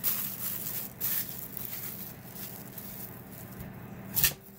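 Plastic food bag crinkling as it is handled, then one sharp snap about four seconds in as the bag's neck is pulled through a desktop tape bag sealer, which wraps it in tape and cuts it off.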